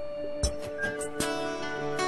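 Background music: held instrumental notes over a soft, regular beat.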